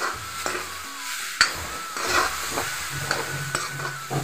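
Spatula scraping and stirring in a metal wok, with irregular scrapes and knocks over the sizzle of greens stir-frying in hot oil.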